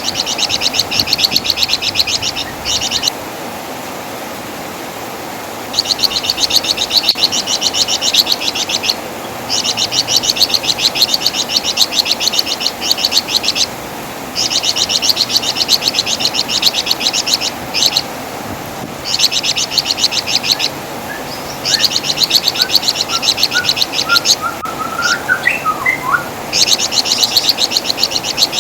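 Flamboyan (wergan Jawa) songbird giving repeated bursts of rapid, high, chattering trills, each a few seconds long with short pauses between. This is its characteristic crecetan chatter. A few faint short chirps from another bird come in near the end.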